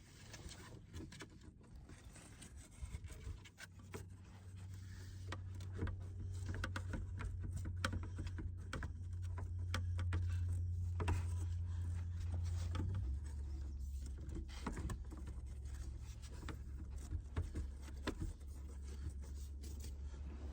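Scraping, rubbing and scattered knocks of PEX tubing being handled and pushed up through holes in a floor. A low steady hum comes in a few seconds in and drops a little in pitch past halfway.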